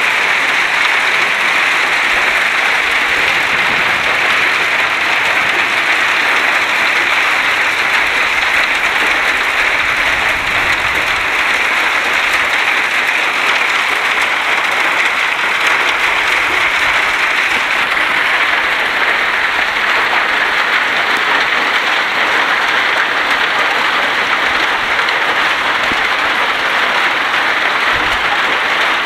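Hailstorm: hailstones about 1.5 to 2.5 cm across falling thickly with rain onto ground and grass, a dense steady patter of countless small impacts.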